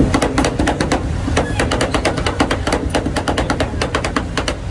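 Two metal spatulas chopping rapidly on a steel cold plate, a fast clatter of metal taps several times a second, as dragon fruit and toppings are chopped into the cream base of a rolled frozen dessert.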